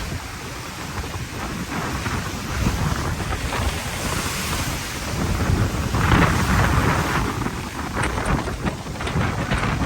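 Typhoon storm: strong wind gusting and buffeting the microphone with a deep rumble, over steady rain, with a strong gust about six seconds in.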